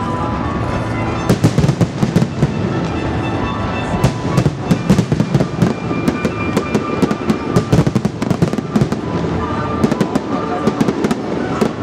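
Aerial firework shells bursting in quick succession: a dense run of sharp bangs and crackles, with music playing alongside.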